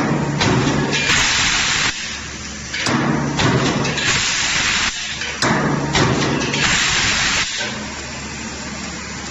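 Power press with a CNC sheet-feeding table running: a steady low motor hum under repeated bursts of hissing, each lasting up to about two seconds, with a few sharp clicks between them.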